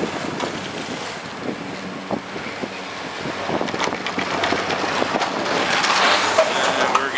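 High-speed detachable quad chairlift running near its top terminal, with scattered clicks and clatter from the lift, growing louder and noisier over the last couple of seconds, and wind on the microphone.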